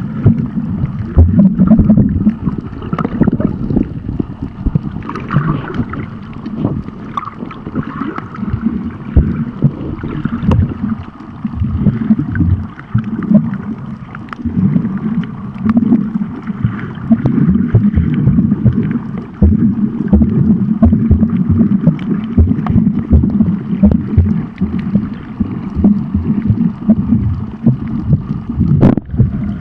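Muffled sloshing and gurgling of water heard from a camera held underwater, with many small irregular knocks and a dense low rumble.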